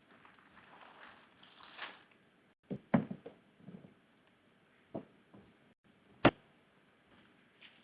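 A few scattered knocks and clunks over a faint background hiss, the sharpest and loudest a single hard knock about six seconds in.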